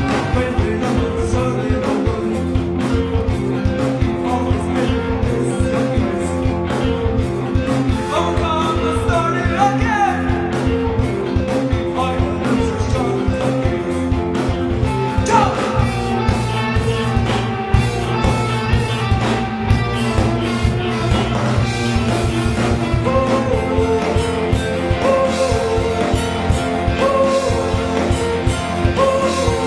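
Rock music with a singing voice, guitar and a steady drum beat.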